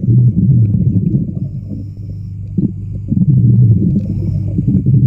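A loud, low rumbling hum that eases off for about a second and a half in the middle, then swells back up.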